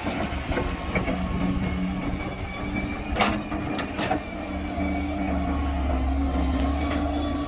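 Wheeled excavator's diesel engine running steadily as the machine digs soil, its low drone growing louder about five seconds in. Two sharp clanks, about a second apart, come a little past the middle.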